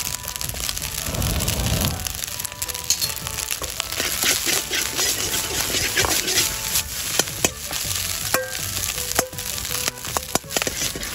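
Fried rice sizzling in a Chinese wok over a high campfire flame, with scattered sharp clicks and knocks as it is stirred. The sizzle builds about two seconds in.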